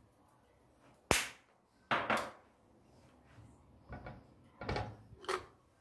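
A few short, sharp knocks and clacks of kitchenware being handled: a sharp one about a second in, a quick pair soon after, then three fainter ones.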